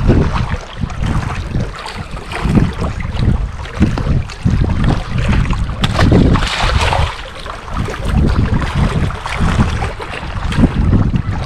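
Wind buffeting the microphone in uneven gusts, a heavy low rumble that is strongest about six seconds in.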